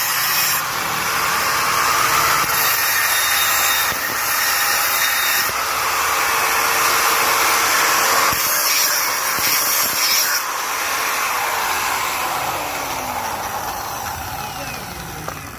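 Steady loud hissing, whirring machine noise in a repair shop, with a faint tone that slides down a little after ten seconds in as the noise gradually fades.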